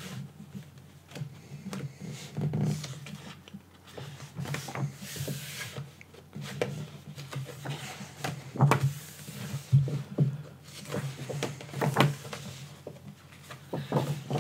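Paper pages of a softcover book being turned and smoothed flat by hand: scattered rustles and soft taps, with a low steady hum underneath.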